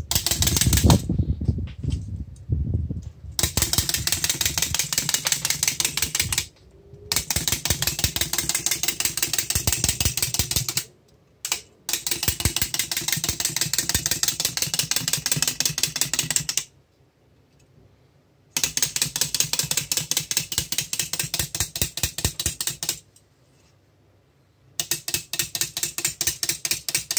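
Clockwork mechanism of a 1950s Köhler tin wind-up Easter bunny clicking rapidly and evenly as the toy hops across a wooden tabletop. The clicking comes in several runs of a few seconds with short pauses between, after a few seconds of handling noise at the start.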